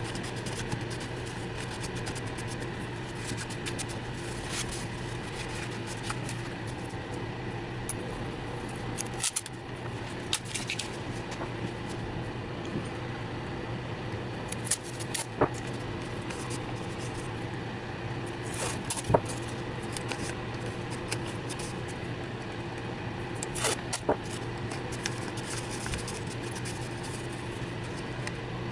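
Scattered small scrapes, clicks and rustles of hands handling a metal wheel hub while cleaning and masking it, over a steady low hum.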